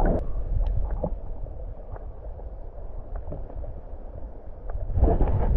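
Wind rumbling on the microphone over the rush of a flowing stream, with a few faint ticks. The wind gusts louder near the end.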